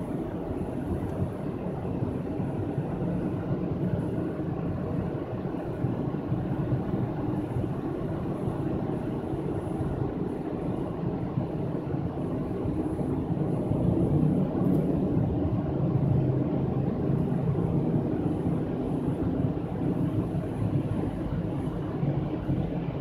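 Steady road and engine rumble of a car driving through a road tunnel, heard from inside the cabin, growing a little louder past the middle.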